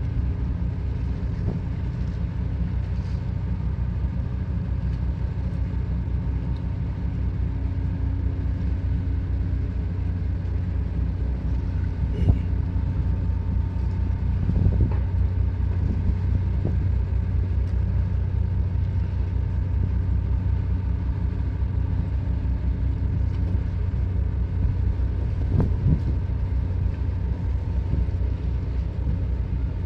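A ship's engine running steadily, a constant low hum with a few faint knocks.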